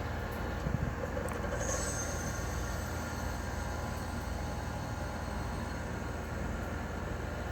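The outdoor unit of a 2001 Trane XE1000 5-ton heat pump running steadily with a machine hum, switched over to its defrost cycle. A faint hiss starts about two seconds in and fades.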